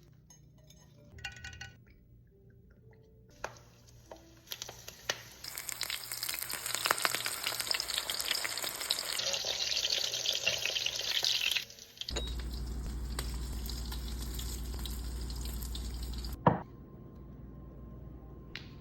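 Chicken sizzling as it fries in hot oil, after a few scattered clicks and knocks. Then a steady low hum runs for about four seconds and ends with a single knock.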